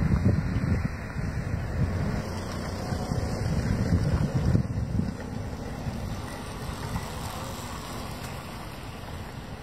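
Wind buffeting the microphone: an uneven low rumble that gusts hardest in the first few seconds, then eases.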